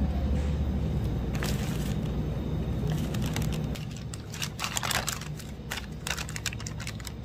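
Shopping cart rolling across a store floor with a steady low rumble that fades about four seconds in, followed by scattered crinkling and clicking.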